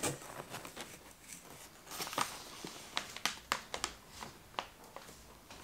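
A plastic snack bag of Werther's Original caramel popcorn crinkling and rustling in the hands as it is turned over, in short, irregular crackles.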